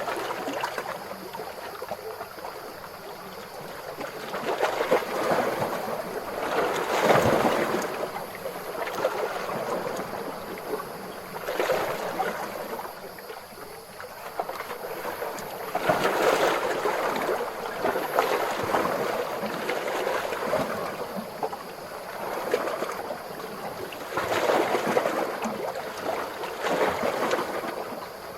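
Calm ocean waves washing in, a rushing swell of surf every few seconds that rises and then ebbs away, about six swells in all, the strongest about seven seconds in and again around sixteen seconds.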